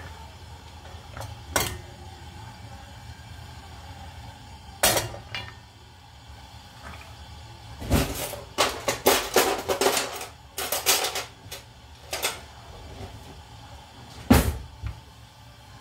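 Kitchen dishes, pans and utensils clinking and knocking as they are handled: scattered strikes, a dense run of clatter in the middle, the loudest knock near the end. A steady hum runs underneath.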